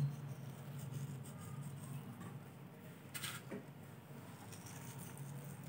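Faint pattering of poppy seeds sprinkled by hand onto jaggery-glazed flatbreads on a plate, with a short soft rustle about three seconds in, over quiet room tone.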